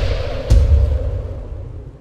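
Logo sting sound design: a deep cinematic impact hit about half a second in over music, then a long decaying fade-out.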